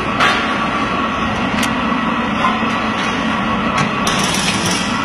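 Steady industrial machinery noise, with a few sharp knocks on metal.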